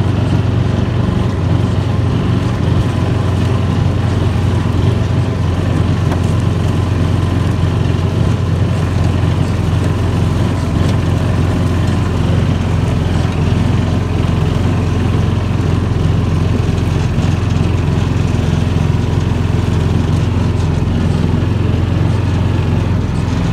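Gator utility vehicle's engine running steadily while the vehicle drives along a dirt trail, its low hum holding an even pitch and level.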